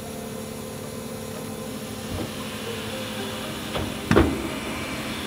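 Electric refuse truck's rear-loader bin lifter whirring steadily as it raises and tips a wheeled bin, with a couple of light knocks and one loud clunk a little after four seconds in as the bin reaches the top of its tip.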